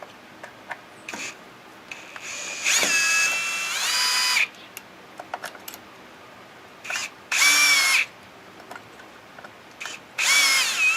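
Power drill driving out the screws that hold a lathe faceplate to a wooden bowl blank. The motor whines in three runs: a longer one of about two seconds that steps up in pitch, then two short bursts.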